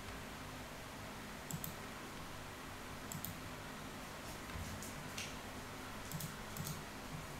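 Scattered computer keyboard and mouse clicks, several in quick pairs, including a Tab key press near the end, over a steady faint hiss.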